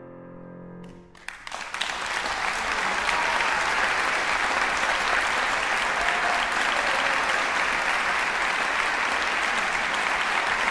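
A grand piano's final chord rings and fades, and about a second in the audience bursts into applause that carries on steadily, marking the end of the piece.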